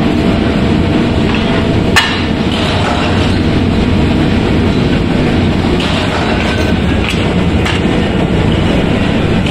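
Steady loud mechanical rumble of metalworking machinery, with one sharp metallic knock about two seconds in and a few fainter clicks later.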